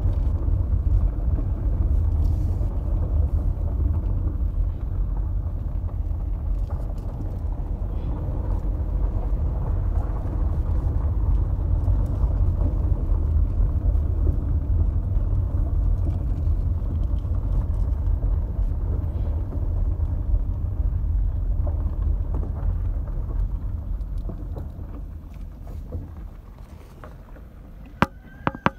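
Car driving slowly along an unpaved dirt road, heard from inside the cabin: a steady low rumble of engine and tyres that dies down near the end as the car slows. Right at the end come two sharp clicks and the start of a high steady tone.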